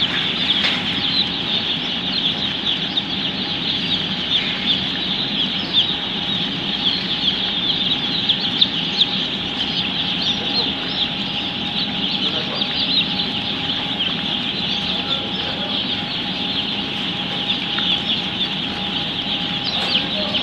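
Hundreds of newly hatched broiler chicks peeping all at once, a dense, unbroken chorus of high-pitched cheeps, over a faint steady hum.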